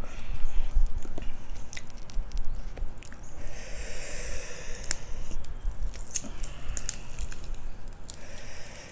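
Close-up chewing of crunchy food, spicy cucumber salad with crispy pork rinds, with many sharp irregular crunches and a longer wet, hissy stretch a few seconds in.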